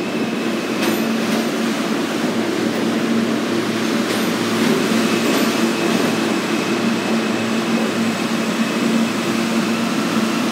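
R160A-2/R160B New York City subway train pulling into the station past the platform: a steady rumble of wheels and running gear with a constant hum, and a few clicks as the wheels pass over the rail.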